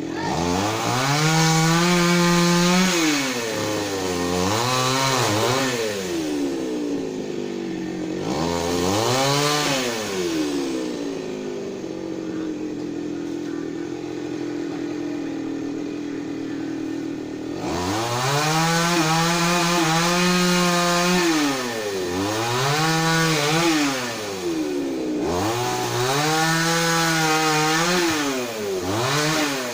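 Two-stroke chainsaw being throttled up and down. Several times it revs to full speed and holds there for two or three seconds, with quicker blips in between. It drops back to a steady idle for several seconds near the middle.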